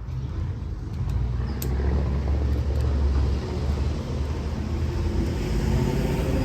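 A motor vehicle's engine running close by: a low rumble that grows steadily louder, with a couple of light clicks a second or two in.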